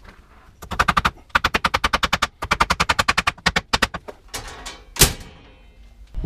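Hammer driving a staple over electrical cable into a wooden board: two quick runs of light taps, about seven a second, then one hard blow with a short ring about five seconds in.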